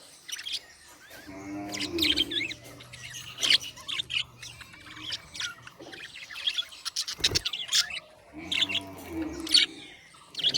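Budgerigars chirping and chattering in a busy run of short, squeaky calls. Twice a lower steady hum sounds underneath for a second or two.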